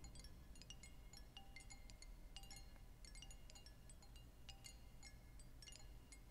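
Faint, irregular high tinkling of chime-like pings, scattered over near silence.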